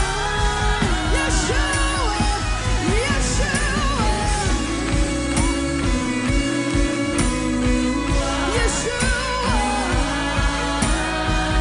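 Live worship band music with a steady beat under sustained chords and bass, and a wavering lead melody that slides and bends over it.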